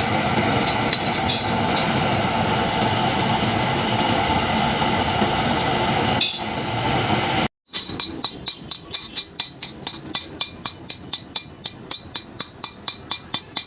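A steady mechanical whirring with one sharp metallic clink. Then, after a sudden break, rapid even hammer blows on iron, about four a second, each with a bright metallic ring.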